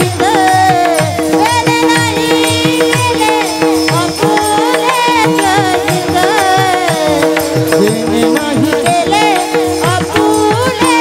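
Warkari devotional singing: a man's voice sings a verse over the strokes of a mridang drum and the clash of small brass hand cymbals, with a steady held drone note underneath.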